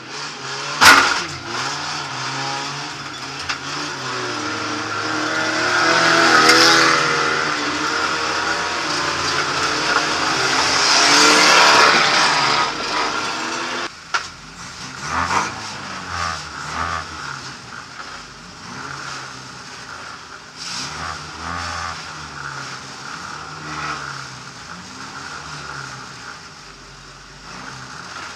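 Banger racing car's engine, heard from inside the cabin, revving up and down under hard driving with tyre noise, with one sharp loud bang about a second in. About halfway through it cuts to the engine idling on the grid, quieter, with short blips of the throttle.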